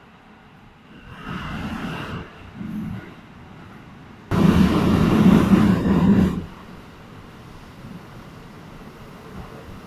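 Running sound of a Keikyu 600 series electric train, heard from on board: a steady low running noise that swells about a second in, then jumps suddenly to a much louder stretch of about two seconds just past the middle before settling back to the lower noise.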